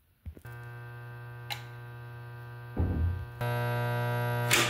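Steady electrical mains hum, a buzz with many overtones, from the electrical gear at a building's breaker panel. The hum steps up louder about three and a half seconds in, just after a low thump. There is a sharp click about a second and a half in and another near the end.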